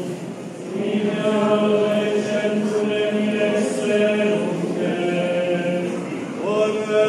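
Franciscan friars chanting together in slow, long held notes. There is a brief break near the start, the voices come back in just under a second in, and a new phrase rises in pitch near the end.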